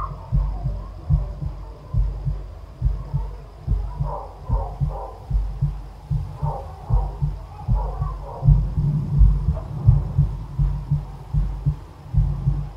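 Low, heavy heartbeat thumping, about two beats a second, with a steady hum beneath. Faint high wavering sounds come twice in the middle.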